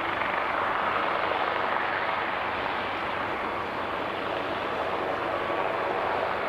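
Airbus A380's four Rolls-Royce Trent 900 turbofan engines running at takeoff thrust as the jet rolls down the runway: a steady, even jet noise.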